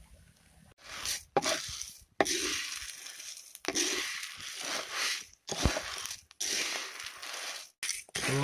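Coffee beans roasting in a clay pan, stirred with a wooden spatula: a dry scraping, rattling rustle of beans against the clay. It comes in short stretches that cut off abruptly, with a few sharp clicks.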